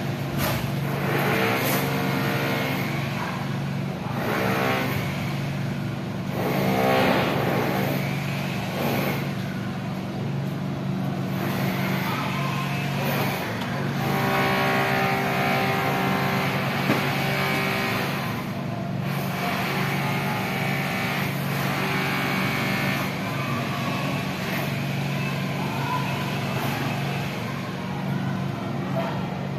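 Motor vehicle engines running, a steady low hum with pitched engine tones that rise and fall every few seconds.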